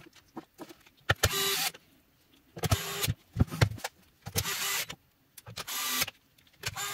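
DeWalt cordless gyroscopic screwdriver driving screws into a plastic battery case in four short runs of motor whir, each about half a second, with clicks of the case being handled between them.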